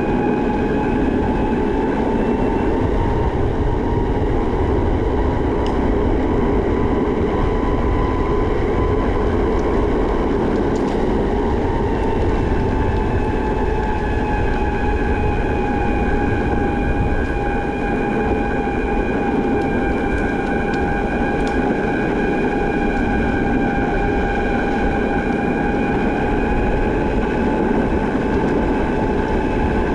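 Backfire Zealot electric skateboard's motor whining, its pitch drifting slowly up and down with speed, over a steady rumble.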